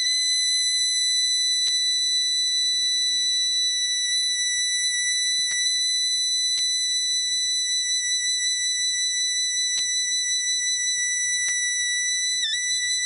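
Suona holding one very long, high, steady note, with a couple of quick dips in pitch near the end.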